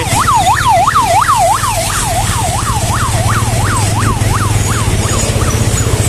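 Electronic emergency-vehicle siren in fast yelp mode, its pitch sweeping up and down about three times a second, fading away and gone shortly before the end. A steady low engine rumble runs beneath it.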